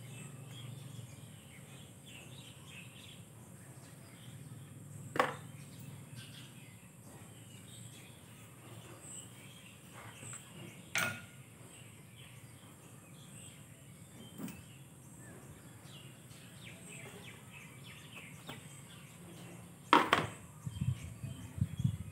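Sharp clicks and knocks from handling tyre plug repair tools: single clicks spaced several seconds apart, then the loudest knock followed by a short run of rattling knocks near the end as metal tools are set down in a plastic kit case. Birds and insects chirp faintly behind a steady low background hum.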